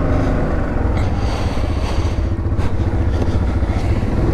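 Yamaha Grizzly 700 ATV's single-cylinder engine running steadily while the quad is ridden along a trail, with a few light knocks from the machine going over bumps.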